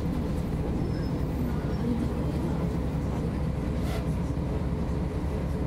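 1999 MAN NG 262 articulated bus's diesel engine running steadily, heard from inside the bus as a low, even drone.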